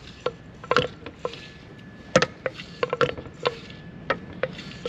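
Metal clinks and knocks from a broken-open, old-style air-conditioning compressor being handled on a workbench: about a dozen irregular sharp clinks, some with a brief metallic ring.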